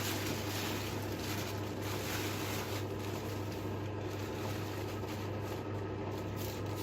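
Rustling and shaking of a vacuum cleaner's dust bag being emptied into a plastic bag, loudest in the first few seconds, over a steady low hum.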